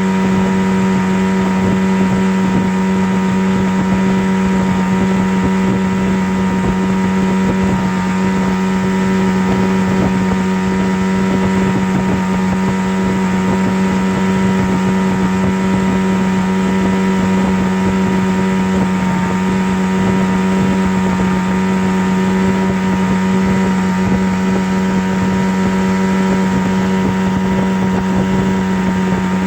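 A steady, unchanging low hum over an even hiss, running continuously without a break.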